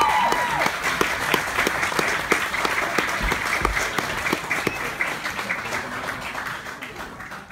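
Audience applauding, many hands clapping with a cheer trailing off at the start, the clapping slowly dying away toward the end.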